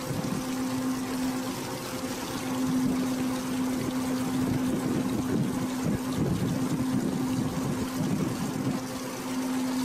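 Cruise boat's engine running steadily with a low hum, over a constant rush of water and air noise as the boat moves along.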